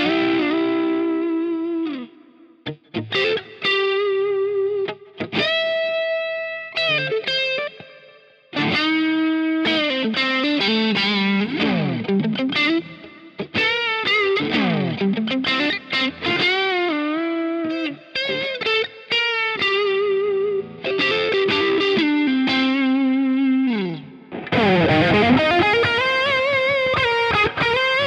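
Fender Player Stratocaster electric guitar playing a single-note lead line with pitch bends and vibrato on held notes. It breaks off briefly about two seconds in and again about eight seconds in.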